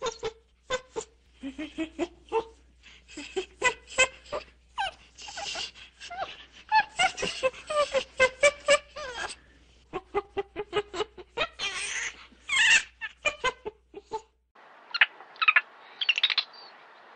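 Monkeys calling: a rapid string of short, sharp chattering calls with longer screeches among them. About fourteen seconds in, the sound switches to a different recording with a steady hiss behind a few higher, shorter calls.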